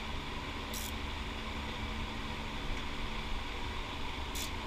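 Steady low background hum, with two brief, faint high scrapes about a second in and near the end as a rear brake caliper is handled and its guide pins pushed in.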